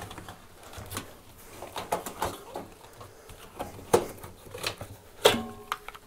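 Rubber washing machine door seal being worked and pulled away from the drum rim, giving scattered light clicks and scrapes. About five seconds in there is a louder click with a brief ringing tone.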